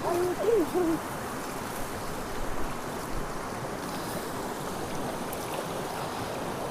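Steady rush of flowing river water. In the first second, a brief wordless, wavering voice-like call sounds over it.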